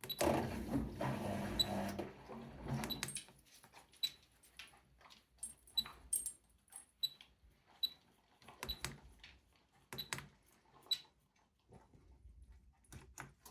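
A noisy, louder sound for the first three seconds, then a run of separate clicks, irregularly spaced about half a second to a second apart, many with a brief high tick to them: a Miele W 5740 washing machine's control dial and start/stop button being worked through the service-mode menus.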